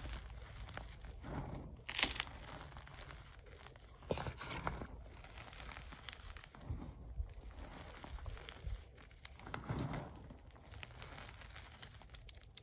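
Hands squeezing and crumbling handfuls of crushed gym chalk blocks (magnesium carbonate) in a tray: soft, crunchy, powdery crushing in separate squeezes, a few louder than the rest.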